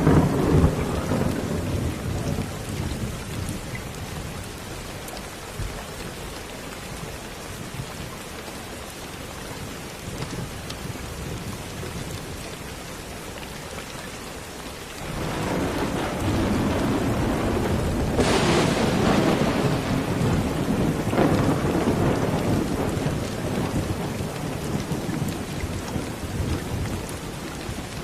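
Steady rain with thunder. A rumble dies away over the first few seconds; about halfway a new long rolling peal comes in suddenly, with a sharp crack a few seconds later, and slowly fades near the end.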